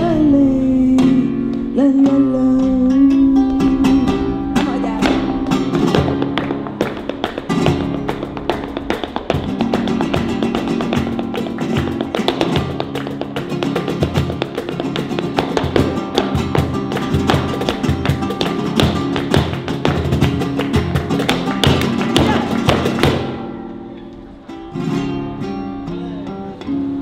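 Live flamenco: an acoustic guitar playing, with a wavering singing voice over it in the first few seconds. From about six seconds in, rapid sharp percussive taps from the dancer's footwork run over the guitar, then stop about 23 seconds in, leaving the guitar playing alone.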